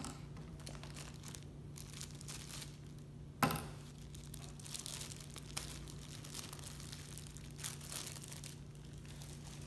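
Clear plastic packaging crinkling and tearing as a squishy toy is cut and unwrapped from its bag, in short, uneven rustles. One sharp click about three and a half seconds in.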